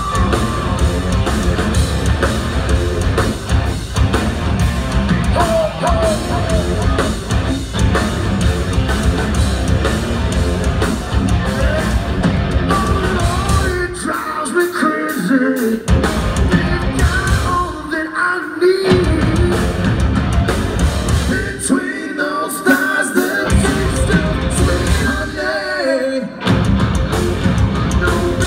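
Live heavy rock band playing loud: distorted electric guitars, bass guitar and drums, with a singer singing and shouting into the microphone. In the second half the bass and drums stop several times for a second or two, leaving the guitar and voice.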